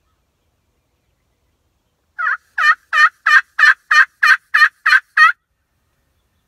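Turkey call worked as a run of about ten hen yelps, about three a second, starting about two seconds in.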